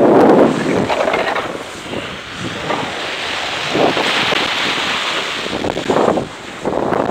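Wind buffeting the microphone of a camera on a windsurf rig, with water rushing and splashing as the board sails through whitewater surf. It is loudest in the first second, with further gusts later on.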